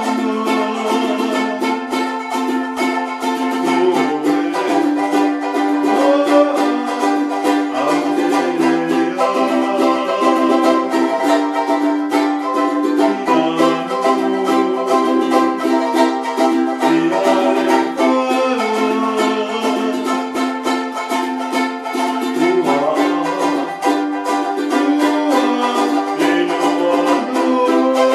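Tahitian ukulele played with fast, even strumming, carrying a tune that moves above the steady strum.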